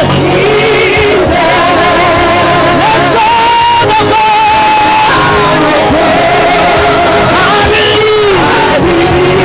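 Live worship music: singing voices over instrumental accompaniment, continuous and loud.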